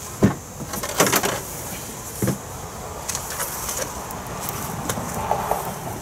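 Fiberglass insulation being pulled down from under floor joists: rustling and scraping, with sharp knocks about a quarter second in, around a second in and just after two seconds in.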